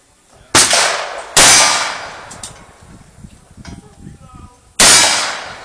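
Three gunshots in a cowboy action shooting stage, the first two less than a second apart and the third after a pause of about three seconds, each trailing off in a ringing tail.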